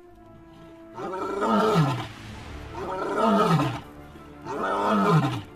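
Three loud animal calls, each about a second long with a falling pitch, over steady background music.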